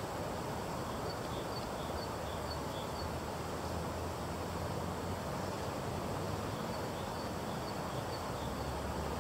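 Steady rushing of a swollen, fast-flowing river, with a low rumble underneath. Faint high bird chirps repeat about twice a second, in two short runs.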